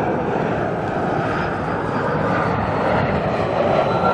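Jet airliner engines running loud and steady as the plane passes close by, with a faint high whine over the noise.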